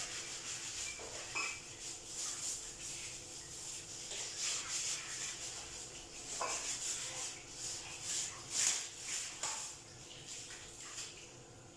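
A scrubbing brush working the wet tiles behind a refrigerator in quick, uneven strokes, easing off near the end.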